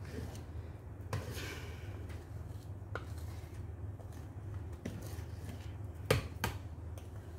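Hand whisk stirring thick brownie batter in a stainless steel bowl: soft wet scraping with a few sharp clicks of the whisk against the bowl, the loudest two a little after the middle, over a steady low hum.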